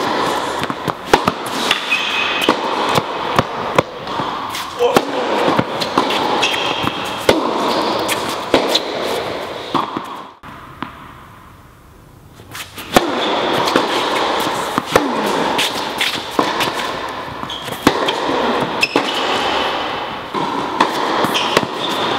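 Tennis balls struck by rackets and bouncing on an indoor hard court: repeated sharp pops every second or so over indistinct voices and hall noise. The background drops away for about two seconds near the middle, then returns.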